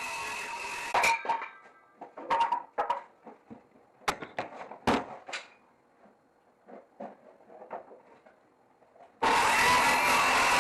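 A power tool runs with a steady whine and stops about a second in. Scattered knocks and clatter of wood and tools being handled follow, then a quiet stretch, and the tool starts up again near the end.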